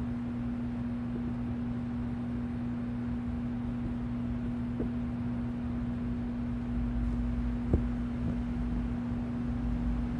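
Steady low electrical hum, one constant tone with a weaker tone beneath it, over faint room rumble, with two soft knocks about five and eight seconds in.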